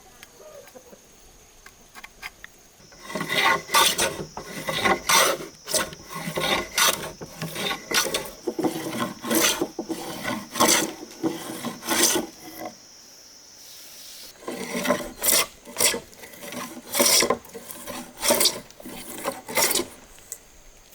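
A hand tool scraping across wood in rough, repeated strokes, roughly one or two a second, in two runs with a short pause between. A steady high-pitched tone sits behind the first part.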